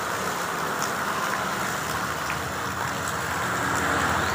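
Heavy rain hissing steadily on a road and vegetation, with a motorbike engine passing along the wet road, loudest about four seconds in.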